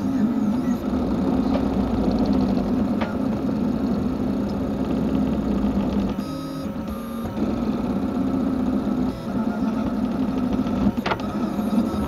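FDM 3D printer printing: the stepper motors whir steadily as the hotend moves, with the cooling fan running. The sound changes briefly about six seconds in, and there is a single sharp click about eleven seconds in.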